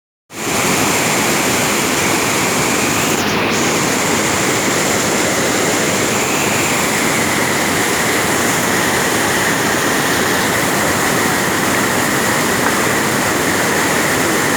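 Rushing water: a steady, loud, unbroken rush, starting abruptly within the first half second.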